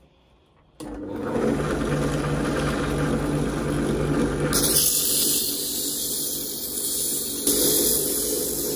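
Bench drill press motor starts about a second in and runs steadily, spinning a metal part chucked in its spindle. From about halfway, sandpaper pressed against the spinning metal adds a loud, steady sanding hiss over the motor.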